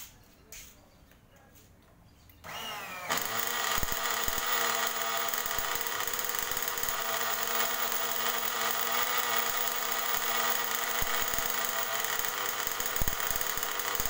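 A 1/8-scale nitro buggy engine being started on an electric starter box: about two and a half seconds in, a high mechanical whine rises quickly in pitch, then holds a loud, steady high-pitched run.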